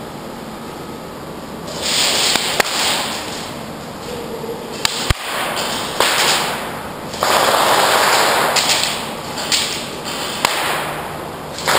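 Stretches of rustling and shuffling from a player moving in gear against a plastic-tarp barricade, with a few sharp single cracks of airsoft shots scattered through.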